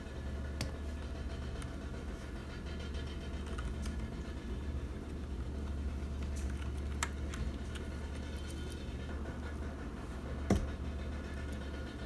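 Small scattered plastic and metal clicks as the stabilizer of a Noir N1v2 mechanical keyboard is pried out with tweezers, over a steady low hum. A single louder knock comes near the end.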